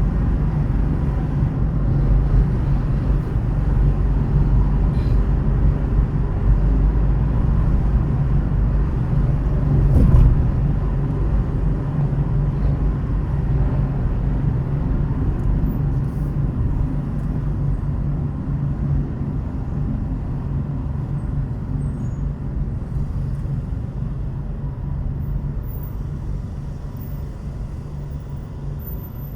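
Car driving on city roads: steady low rumble of engine and tyres, with a brief louder swell about ten seconds in, growing gradually quieter toward the end.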